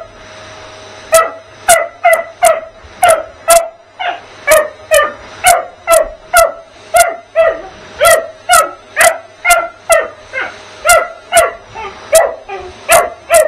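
A springer spaniel puppy barking sharply and repeatedly, about two barks a second, at a running vacuum cleaner. The steady hum of the cylinder vacuum's motor runs underneath.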